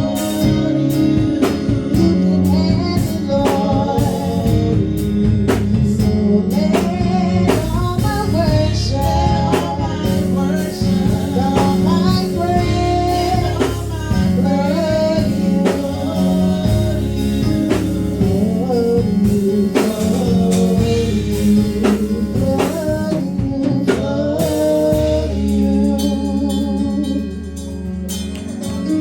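Gospel worship music from a band with drum kit, guitar and bass, with singing over it. It eases into a softer instrumental passage about 25 seconds in.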